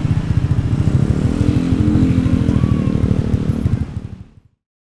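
Motorcycle engine running close by with a rapid low pulsing, its note rising for a second or two in the middle, amid passing traffic. The sound fades out about four seconds in.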